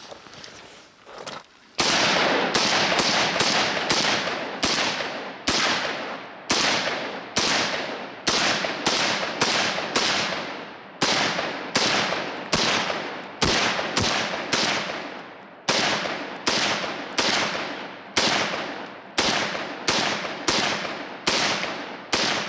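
A .300 Blackout AR pistol with a VG6 Gamma muzzle brake firing a long string of rapid shots, roughly two a second, starting about two seconds in. Each report has a short echoing tail, and the muzzle blast through the brake is unbelievable.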